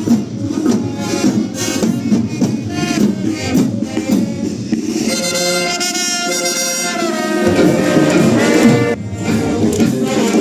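Massed tamborrada drums beating a march in the street, with band music playing along. About halfway through, a held pitched chord sounds over the drumming for a couple of seconds, then the steady drum strokes carry on.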